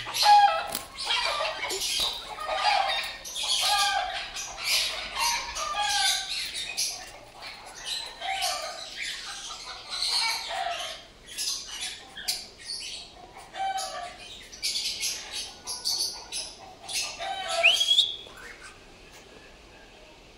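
Young cockatiels squawking over and over, with flapping and rustling, as the chicks are handled. A short rising whistle comes near the end, then the calls die down.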